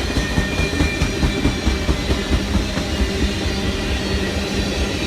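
Circus train cars rolling past at steady speed, a continuous rumble of wheels on the rails with faint clicking.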